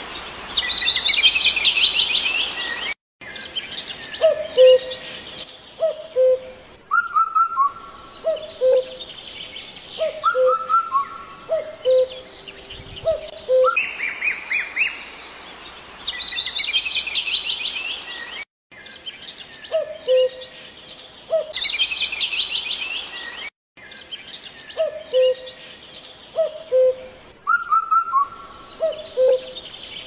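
Mixed wild birdsong: fast high trills and chirps alternating with series of short, lower whistled notes. The same passage repeats about every fifteen seconds, broken by brief sudden gaps.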